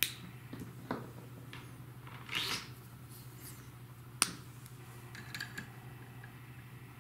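Hands swapping the pen in an AxiDraw pen plotter's pen holder: several sharp clicks, the loudest about four seconds in, and a short rustle of handling about two and a half seconds in, over a steady low hum.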